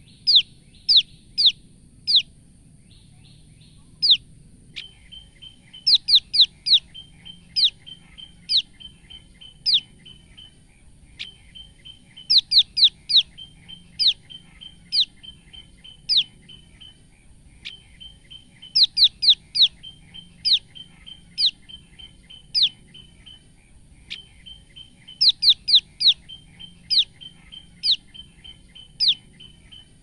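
Female common tailorbird giving its fear/alarm call: sharp, high falling chirps, first a quick burst of four or five, then slower single chirps about a second apart, the pattern repeating every six seconds or so.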